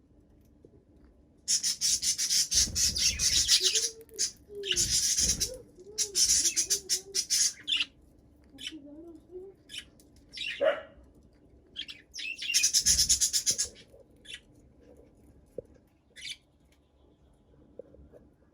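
Budgerigars chattering in several loud bursts of rapid, scratchy high-pitched warbling, each a second or two long, with a few short chirps between.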